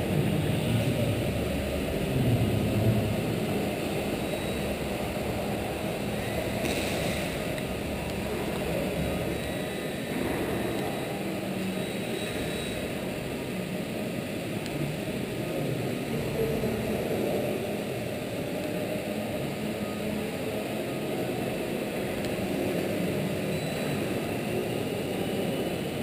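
HobbyZone Champ RC plane's small electric motor and propeller buzzing in flight in a large sports hall, a faint whine that shifts in pitch now and then, over a steady background rumble.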